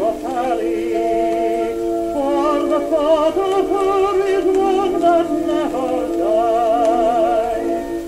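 A 1923 Victor 78 rpm record playing back a vocal duet with orchestra: a voice sings sustained notes with a wide, wobbling vibrato over the accompaniment.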